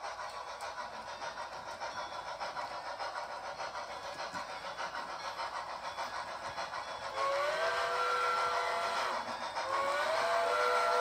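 Sound-equipped HO scale model steam locomotives, Southern 630 and 4501 double-heading, chuffing in a steady rhythm, then sounding a chime steam whistle of several notes: one blast of about two seconds some seven seconds in, and a second blast near the end, louder than the chuffing.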